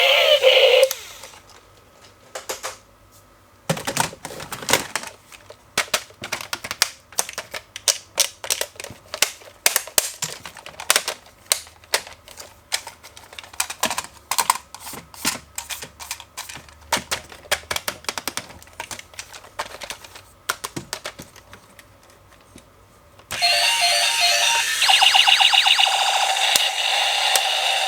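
Irregular sharp clicks and light knocks of plastic being handled, as toys and packaging are unpacked. Near the end, loud electronic music with pulsing beeps starts.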